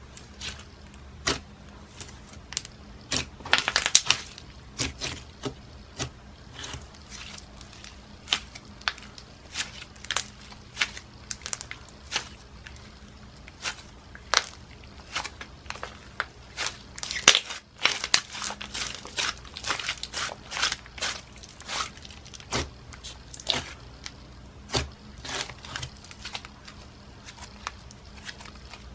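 Hands squishing, stretching and folding a jelly-and-clay slime, which gives off many sharp, irregular pops and clicks as trapped air bubbles burst. There is a dense run of crackling pops about four seconds in and another around eighteen to twenty seconds in.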